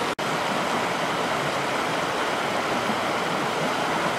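River rapids rushing over rocks: a steady noise of churning white water. It drops out for an instant just after the start.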